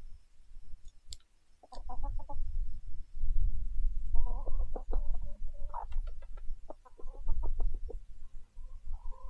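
Chickens clucking in several short runs of clucks, over a low rumble.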